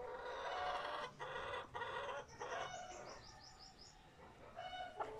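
A rooster crowing: one call broken into several parts over the first two and a half seconds. About three seconds in comes a quick run of five or six high rising chirps, and a short call follows near the end.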